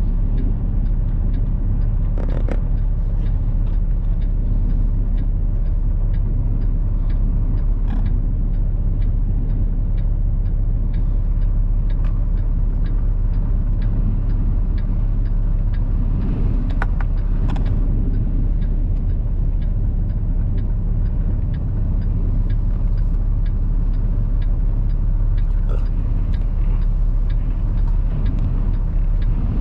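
Steady low rumble of engine and road noise inside a semi-truck cab driving in high wind, with a few faint clicks and taps.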